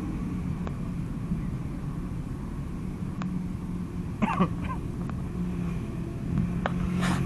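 Steady low rumble of vehicle engines, with a few faint clicks and a short vocal sound about four seconds in.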